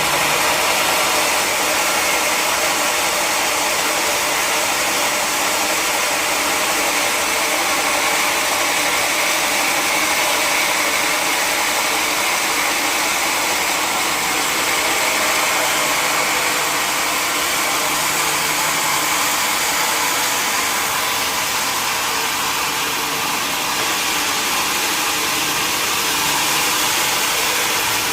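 Sawmill machinery running steadily, a constant rushing noise.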